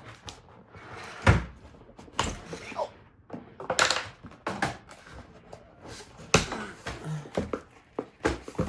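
A pencil poking and prying at a cardboard box, with a string of irregular knocks, taps and scrapes.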